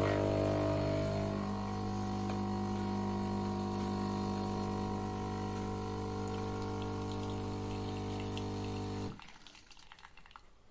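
Philips 2200 LatteGo espresso machine's pump running with a steady buzz while espresso is dispensed into a mug, then cutting off abruptly about nine seconds in, followed by a few faint clicks.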